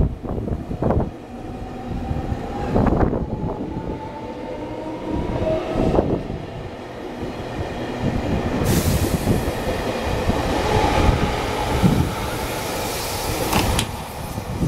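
Electric multiple unit trains (JR Kyushu 813 and 817 series) pulling out of a station. A faint motor whine rises slowly in pitch as they gather speed, with scattered sharp knocks from the wheels. From about nine seconds in, a loud rushing hiss builds as the cars pass.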